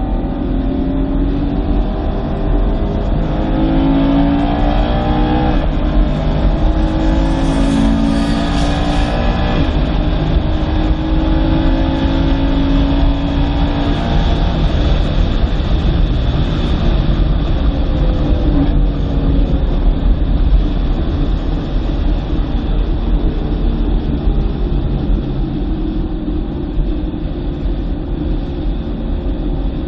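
2009 BMW M3's 4.0-litre V8 under hard acceleration, its pitch climbing in several steps through the gears in the first half and dropping back around the middle, over a steady low road rumble.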